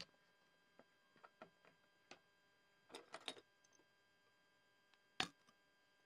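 Scattered small clicks and taps from an Infinix Smart 8 smartphone being taken apart, as a metal pry tool works at the flex connectors on its circuit board. A cluster of clicks comes about three seconds in, and a single sharper click a little after five seconds.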